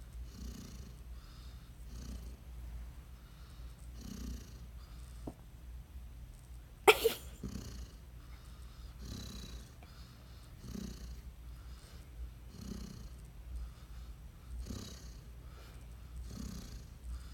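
Vizsla dog snoring in its sleep, a rasping snore about every two seconds. A single sharp knock about seven seconds in.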